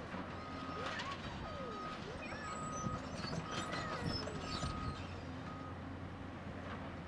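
Backup alarm on construction machinery beeping about once a second, six beeps in all, over the steady low running of heavy diesel engines.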